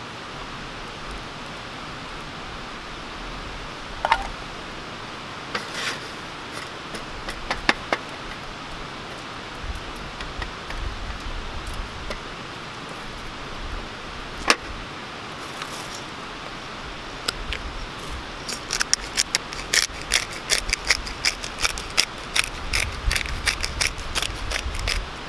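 A few scattered sharp clicks and knocks of a knife on a wooden cutting board as raw chicken is cut. From about 18 seconds in, a quick run of bright clicks and rattles, several a second, from a seasoning bottle shaken or ground over the meat.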